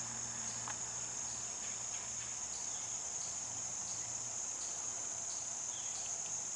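A steady, high-pitched chorus of insects, with a faint low hum beneath it.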